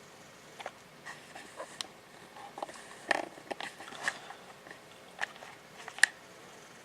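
Scattered faint clicks and small knocks, about a dozen in all, irregular, with one sharper click about six seconds in: close handling noise.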